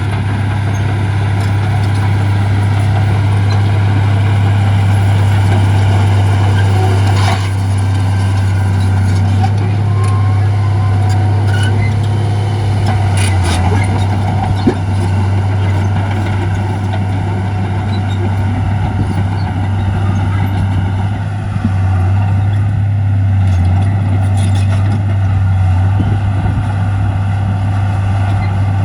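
Heavy diesel engine of earthmoving equipment running steadily under load, a deep constant hum with a few short metallic clanks about 7 and 13 seconds in and a sharp click near 15 seconds.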